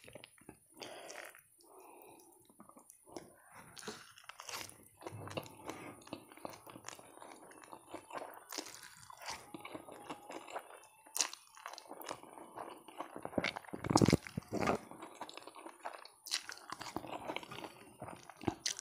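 Close-miked eating sounds: a person chewing and slurping noodles taken up with chopsticks, made up of many small clicks and wet mouth noises, loudest about fourteen seconds in.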